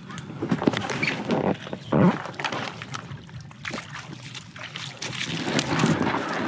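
An inflatable Black Pike packraft being beached on a pebble spit: bare feet crunching on the gravel and the boat's fabric hull scraping and knocking on the stones as it is pulled out of the water, in uneven scuffs and clatters.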